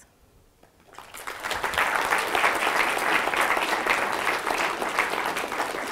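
Audience applauding: clapping builds up about a second in, then holds steady.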